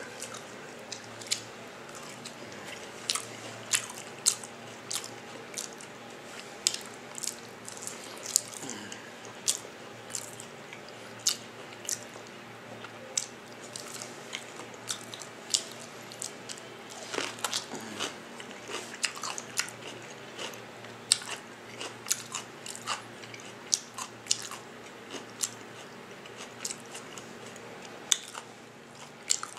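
A person eating: biting and chewing, with many irregular sharp wet clicks and crunches.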